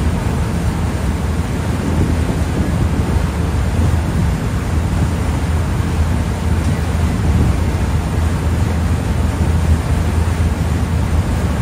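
Passenger ferry's engine running steadily under way, a low, even drone, mixed with the rush of its wake and wind on the microphone.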